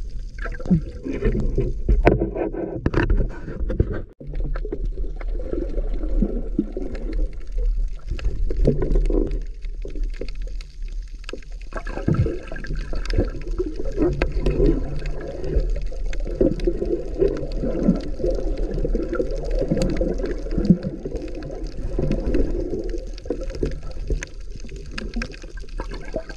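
Muffled underwater water noise from a camera carried by a swimming diver: continuous churning and gurgling of moving water, mostly low-pitched, over a steady low hum.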